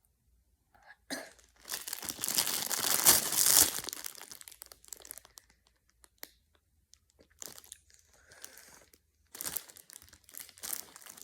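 Packaging crinkling and tearing close to the microphone, loudest for a couple of seconds about two seconds in, then trailing off into scattered rustles and handling noise.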